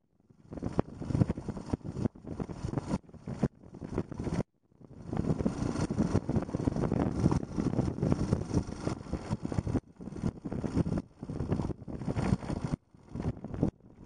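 Yamaha XT250's single-cylinder four-stroke engine running under way, mixed with choppy wind noise on the microphone. The sound drops out briefly several times.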